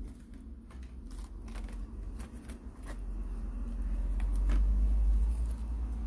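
Plastic laptop top-cover panel being handled over the open chassis: scattered light clicks and taps of plastic, over a low rumble that swells about four to five seconds in.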